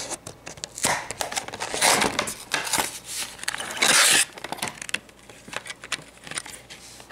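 Clear plastic blister of a toy car package being crinkled and pried open by hand, giving irregular crackling rustles and small clicks, the loudest crackle about four seconds in.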